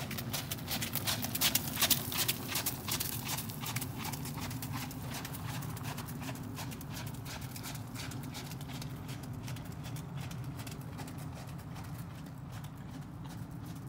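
Horse's hooves striking wet gravel footing in a rapid, steady rhythm as the horse is ridden past. They are loudest in the first few seconds while the horse is close, then grow fainter as it moves away.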